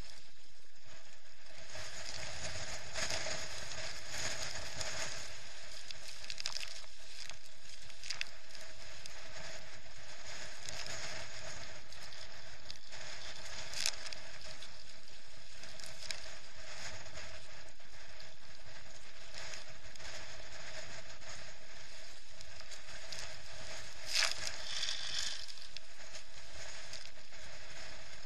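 Wind and water rushing around a Hobie Adventure Island sailing kayak driven through wind chop in Force 7–8 gusts: a steady crackling hiss of spray and splashing, with sharp slaps of water against the hull about halfway through and, loudest, near the end.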